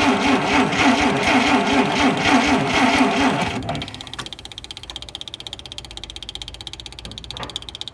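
Dodge D300's slant-six engine being turned over by the starter motor, cranking with a regular rise and fall in pitch but not firing. The cranking stops about halfway through, and a single click follows near the end.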